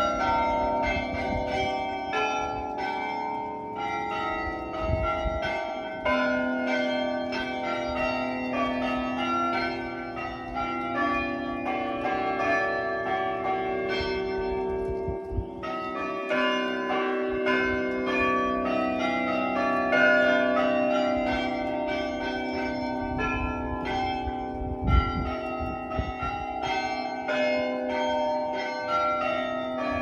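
Chime of tower bells in the Main Building belfry, struck one after another in a continuous tune, the notes ringing on and overlapping. Brief low rumbles come through at times, the strongest about 25 seconds in.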